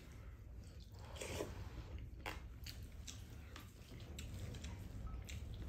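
Quiet eating sounds: chewing, with scattered light clicks of a spoon and chopsticks against ceramic bowls.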